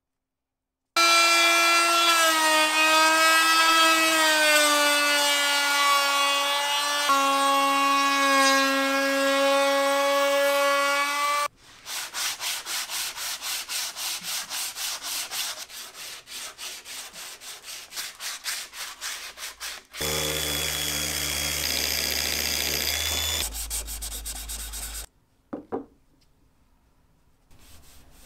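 A router whines at a high, steady pitch as it cuts the edge of a curved plywood altitude bearing, and its pitch drops partway through as the bit loads up. This gives way to rhythmic rubbing strokes on wood, two or three a second, then a deeper-pitched motor hum for about five seconds and a single click.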